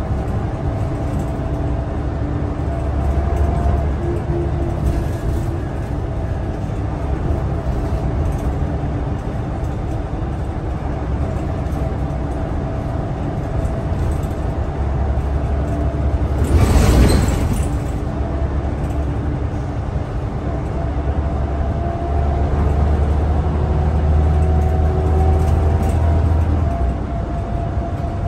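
Scania L94UB city bus heard from inside the passenger cabin while under way: a steady engine and drivetrain rumble with a whine held at a steady pitch, rising and easing a little as it goes. About two-thirds of the way through comes a sudden, loud burst of hissing noise lasting about a second.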